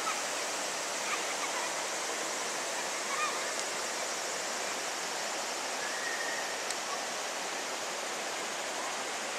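Rocky mountain river flowing over stones: a steady, even rush of water, with a few short chirps over it now and then.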